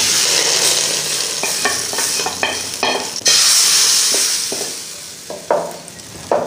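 Hot tadka oil with fried garlic, onion and green chillies poured from a steel pan into cooked masoor dal, sizzling loudly. The sizzle flares up sharply about three seconds in, with a few metal clinks just before, then dies down as the dal is stirred and the spoon knocks against the pot.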